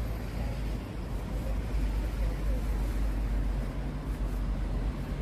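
Steady low rumble of city traffic, with faint voices of passers-by now and then.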